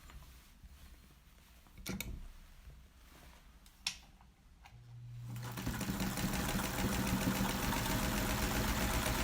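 1953 Singer Model 99 sewing machine running a test stitch after threading. A couple of light clicks come first; about five seconds in, a hum comes up and the machine runs steadily at speed for the last few seconds.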